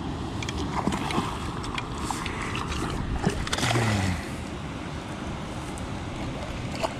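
A hooked spotted bass splashing at the surface beside a fishing kayak, with scattered light clicks and splashes, over a steady rumble of wind on the microphone. A short low sound falls in pitch about four seconds in, after which things go a little quieter.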